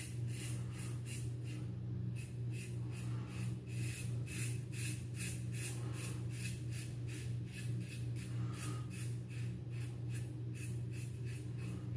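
Single-edge safety razor scraping through lathered stubble in quick, even strokes, about three or four a second, over a steady low hum.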